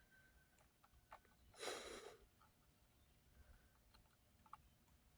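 Near silence: room tone with a few faint small clicks and one short soft rush of noise a little under two seconds in.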